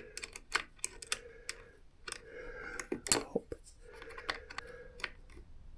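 Irregular light clicks and taps of hand tools on metal, with a couple of short scraping stretches: the throttle cable adjuster's lock nut being locked on a motorcycle throttle body.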